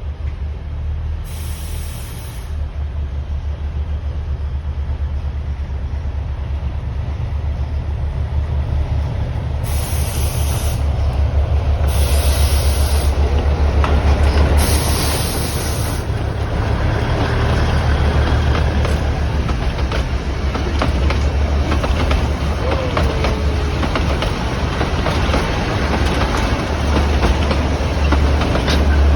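Matheran narrow-gauge toy train running, with a steady low engine drone. Four short bursts of hiss come in the first half, and in the second half the wheels click over the rail joints.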